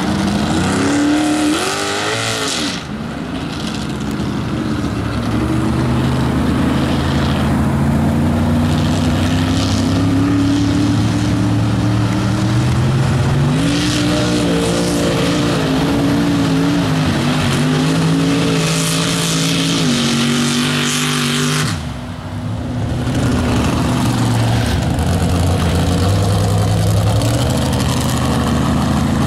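Lifted 4x4 mud trucks' engines revving hard through a mud pit, the pitch climbing and falling again and again as the throttle is worked. The sound breaks off briefly about 22 seconds in, then the revving resumes.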